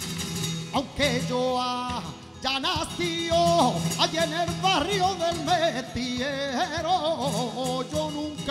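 Male flamenco singer drawing out long, ornamented notes with a wavering pitch and no clear words, over flamenco guitar accompaniment.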